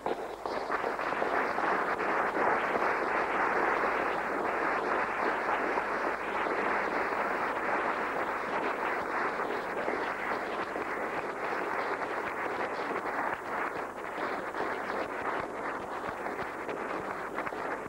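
Audience applause that breaks out all at once and keeps up steadily, easing off a little over the last few seconds.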